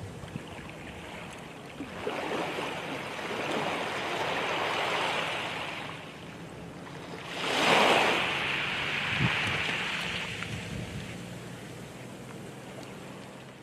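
Ocean surf washing ashore in long swells that rise and fall, the loudest surge about eight seconds in.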